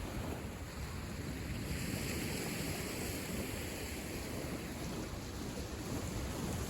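Lake Michigan waves washing steadily onto the shore, swelling a little about two seconds in, with wind buffeting the microphone.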